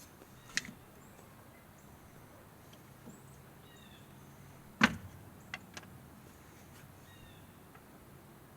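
A few sharp knocks and clicks, the loudest about five seconds in, with faint chirps in the background.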